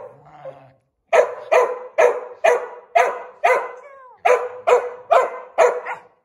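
Samoyed barking repeatedly, about two barks a second after a brief pause, with one falling whine in the middle of the run; it is demand barking to be let out past the plastic wrap stretched across the doorway.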